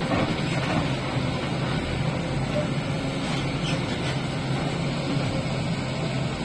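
Diesel engine of a 76 hp Tata backhoe loader running steadily under work, a constant low drone, with a tractor's diesel running alongside.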